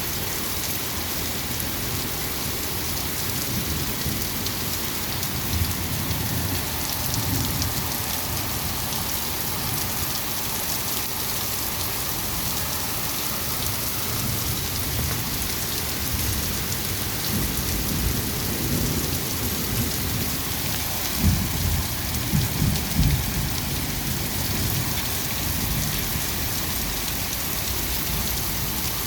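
Heavy rain falling with a steady hiss, and thunder rumbling low in the second half, loudest about three quarters of the way through.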